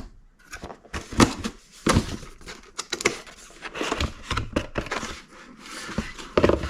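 Paper and cardboard packaging being handled: irregular rustling, crinkling and knocks as a stack of manuals and a sticker sheet is taken out and leafed through.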